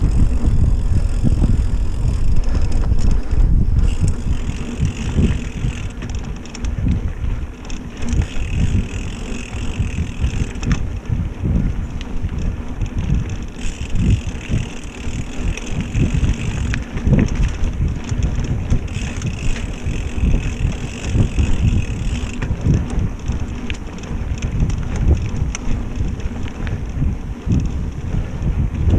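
Mountain bike riding a dirt trail, heard from an action camera on the rider or bike: wind rumbling on the microphone and tyre noise, with frequent knocks and rattles as the bike goes over bumps.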